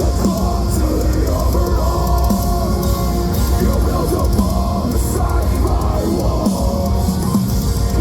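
Live heavy metal band playing loud, with distorted guitars, a drum kit and a vocalist.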